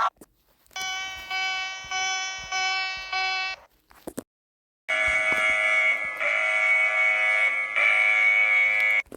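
Two electronic emergency-alert attention tones in turn: first a buzzing tone pulsed about five times, then after a short silence a harsher continuous buzzing alarm lasting about four seconds, shifting slightly about every second and a half.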